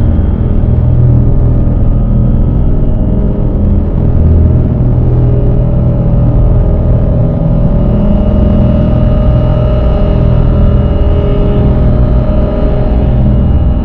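Dark ambient drone music: a loud, dense low rumble with several steady held tones layered over it, no beat and no breaks.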